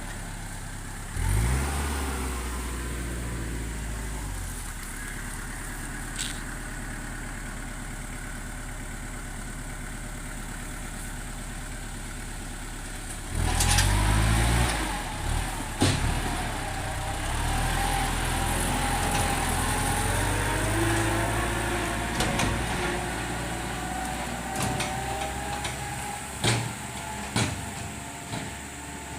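Tractor engine running steadily, revving up twice: about a second in and again about halfway through. A few sharp knocks come near the end.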